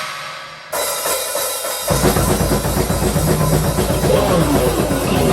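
Instrumental rock band jamming on drum kit, bass and guitar. A cymbal crash rings out, a second hit lands under a second in, and about two seconds in the full drum kit and low bass come in and play on loudly.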